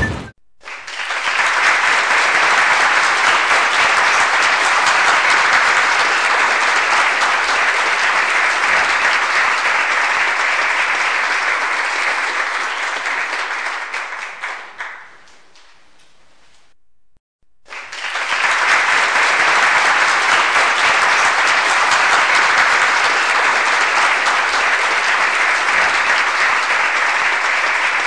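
A crowd applauding, fading out about fifteen seconds in; after a short pause the applause starts again at full strength about eighteen seconds in.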